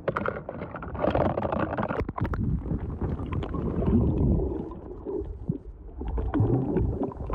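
Muffled water sloshing and gurgling against a submerged camera microphone, with bubbling and a few knocks in the first couple of seconds.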